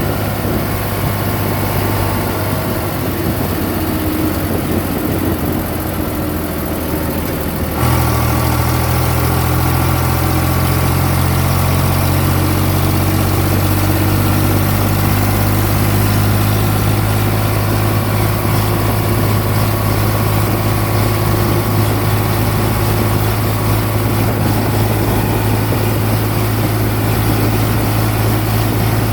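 A tractor's diesel engine runs steadily while driving a backhoe loader attachment. About a quarter of the way in the engine note steps up abruptly, becomes louder and then holds steady.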